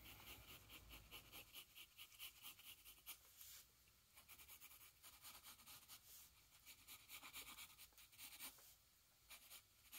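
Faint pencil strokes scratching on sketchbook paper: many short, quick strokes, with a couple of brief pauses.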